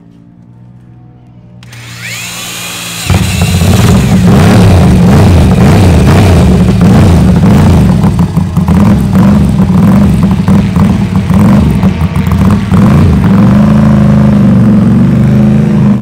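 Air-cooled Ducati V-twin race bike being started on a roller starter. The starter whines up about two seconds in, the engine catches about a second later, and it then runs very loud, with the throttle blipped.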